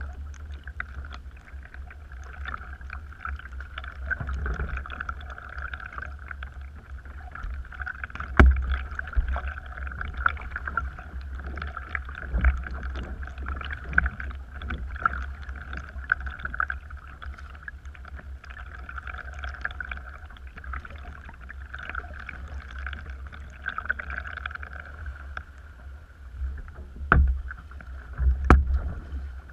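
Kayak being paddled with a double-bladed paddle: blades dipping and dripping, with low thumps and knocks against the hull. There are sharp knocks about eight seconds in and twice near the end, over a steady high-pitched hum.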